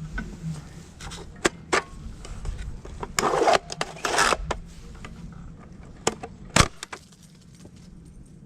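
A dog playing with its toy: scattered clicks and knocks, with two short jingling rattles about three and four seconds in and a sharp knock just before seven seconds.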